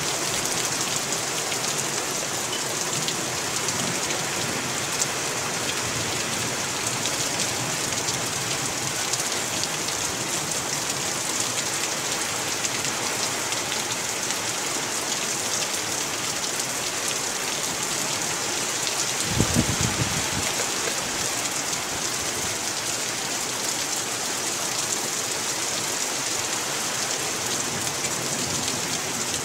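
Heavy downpour: a steady hiss of rain on grass and ground, with water streaming off a shed roof. About two-thirds of the way through there is a brief low rumble.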